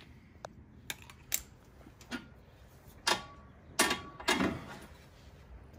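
Scattered metal clinks and clanks, about seven separate knocks, from hand tools and the shock's mounting hardware as a stock CFMOTO ZForce rear shock is worked free. A couple of the louder knocks, about three and four seconds in, ring briefly.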